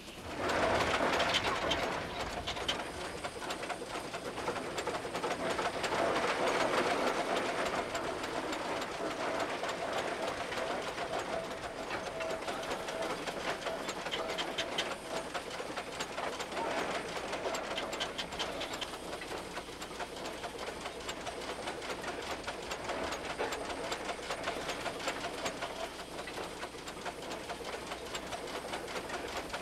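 Machinery running with a fast, even clatter and a steady hum, coming in sharply at the start and holding on steadily.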